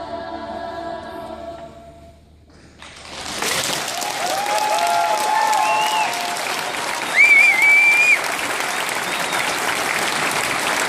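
Children's choir holding its final chord, which stops about two seconds in; after a short hush the audience breaks into applause, with whoops and, about seven seconds in, a loud whistle over the clapping.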